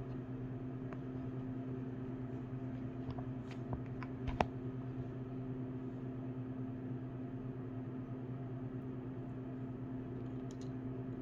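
Steady low hum in a small room, with a few light clicks and taps as ratchet and bit-set parts are handled, the sharpest click about four seconds in.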